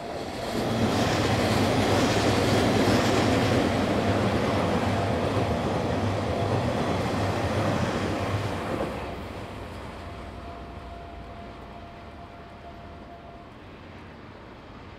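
Blue Train 14 series sleeper coaches rolling past close by, a loud rumble and clatter of steel wheels on the rails. The sound swells under a second in, holds for about eight seconds, then drops away as the coaches recede.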